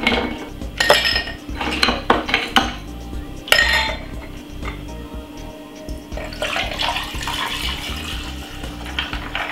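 Ice cubes dropped into a tall drinking glass, clinking sharply several times in the first few seconds. Then sugar cane juice is poured over the ice, a steady splashing pour that stops near the end.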